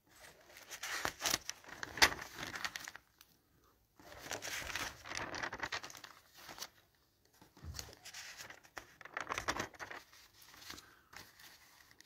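Paper rustling and crinkling in three spells as the pages of a printed instruction booklet are turned and handled.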